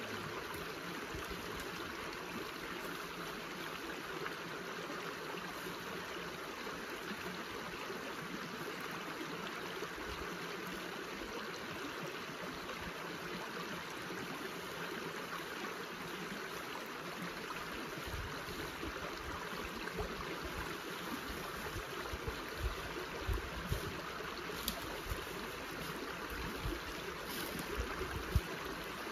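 Steady rushing of running water. From about two thirds of the way in, low thumps and knocks come in more and more often.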